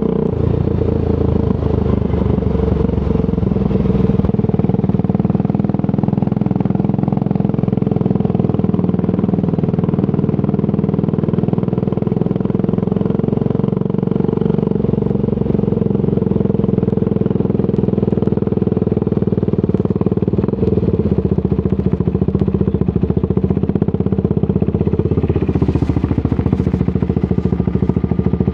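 Triumph Scrambler 400 X's single-cylinder engine running through a Zard aftermarket exhaust while riding, a steady engine note that shifts about four seconds in and again around twenty seconds in.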